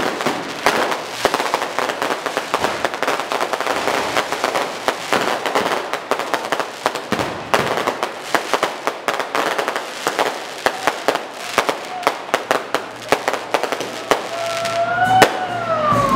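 Fireworks and firecrackers going off in a dense, rapid stream of cracks and pops. Near the end a clear tone rises and then falls over the crackling.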